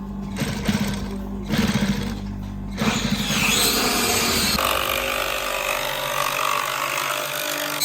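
A power tool working in a furniture workshop, heard in three rough, rapidly pulsing bursts and then a steadier hiss from about halfway through, over background music.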